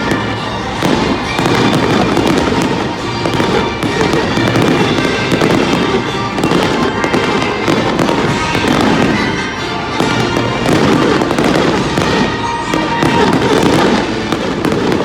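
Fireworks going off in a dense, continuous barrage of pops and crackles, with music playing along.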